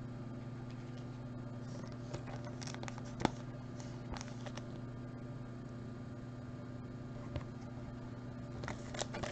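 Topps Chrome trading cards being handled and set down: a few soft clicks and taps, the sharpest about three seconds in and a cluster near the end, over a steady low hum.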